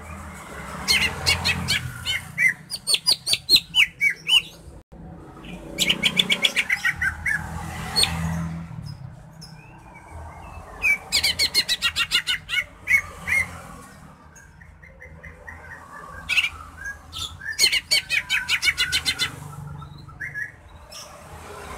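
Caged greater green leafbird (cucak hijau) singing: bursts of rapid, high chattering trills and chirps, about five phrases separated by short pauses.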